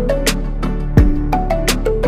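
Background music with a steady beat: a deep kick drum about a second in, sharp percussion hits and short melodic notes.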